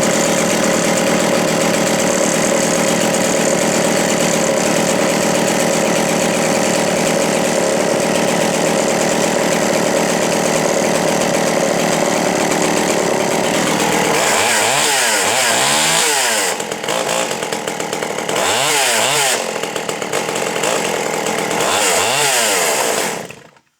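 Tanaka ECS 655 two-stroke chainsaw held at full throttle for about fourteen seconds, then revved up and let down three times and shut off just before the end.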